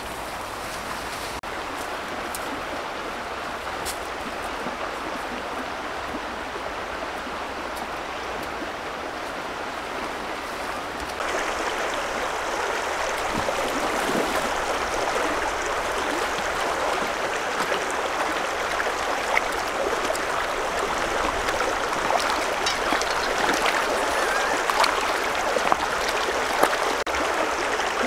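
Steady rushing of a shallow flowing stream, which steps up in loudness about eleven seconds in, with a few sharp ticks near the end.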